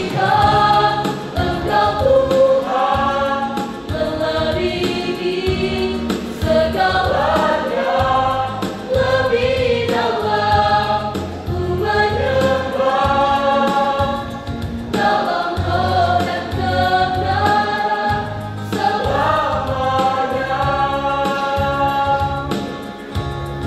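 Mixed youth church choir singing a gospel song together, holding long notes with pitch slides between them.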